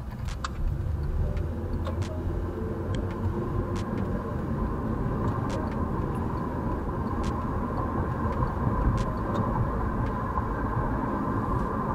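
Engine and road noise inside a car's cabin as it picks up speed out of a turn, then cruises steadily along the road.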